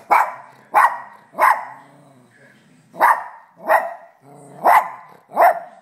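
Small terrier barking sharply seven times in quick, uneven succession, with a low growl in some of the gaps.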